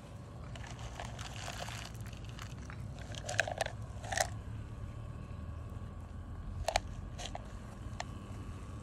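An animal eating dry food from a bowl: crunching and chewing, with a few sharp crunches standing out, the loudest about three and a half, four and nearly seven seconds in.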